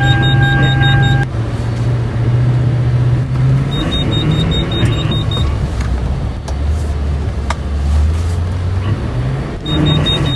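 Toyota Tundra pickup's engine heard from inside the cab, revs rising and falling while the truck is driven in slides on snow. The engine note drops lower for a few seconds past the middle and climbs again near the end.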